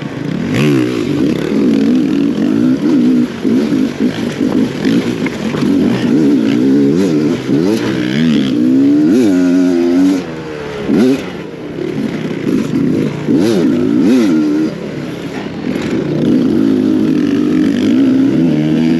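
Enduro dirt bike engine being ridden, its revs rising and falling again and again as the throttle is opened and closed.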